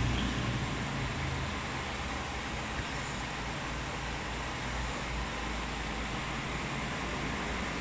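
Steady hiss with a low rumble underneath, an even background noise that does not change.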